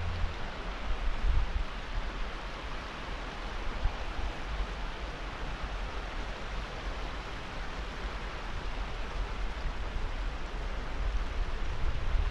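Steady rushing outdoor noise, with wind rumbling on the microphone.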